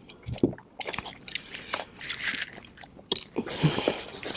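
Wet chewing, biting and lip-smacking of chicken wings being gnawed off the bone with the mouth alone, face down in the plate: a run of short smacks and small crunches.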